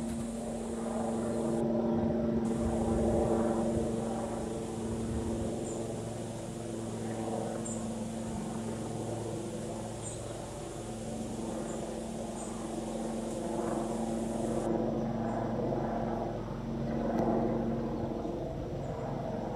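A steady engine drone, a hum of several held tones that swells and eases slightly in loudness.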